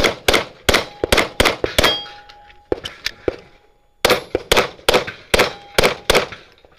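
Rapid pistol shots in two fast strings, with a short break about three and a half seconds in, and struck steel targets ringing with a thin lingering tone after some of the hits.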